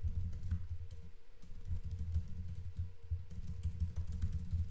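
Typing on a computer keyboard: a quick, uneven run of key presses, with a brief lull about a second in.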